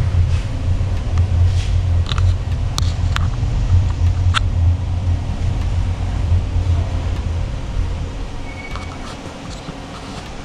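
Funicular car running along its inclined track: a steady low hum with a few sharp clicks in the first half. The hum fades near the end as the car slows into the station.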